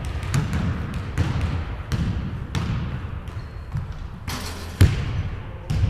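Basketball bouncing on a hardwood gym floor: a string of irregular thuds that echo in the large hall, with a louder, sharper hit near the end as the shot reaches the hoop.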